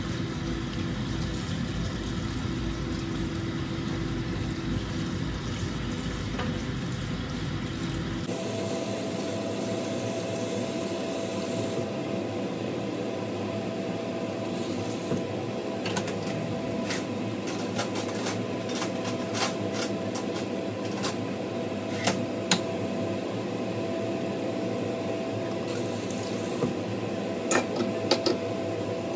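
Tap water running steadily into a sink as food is rinsed under it. In the second half, scattered light clicks and knocks sound over the water.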